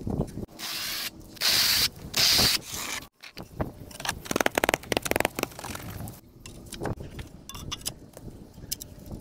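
Porcelain stoneware tile being slid and pressed into notched tile adhesive by gloved hands: rapid scraping and clicking, with three short loud hissing bursts in the first couple of seconds.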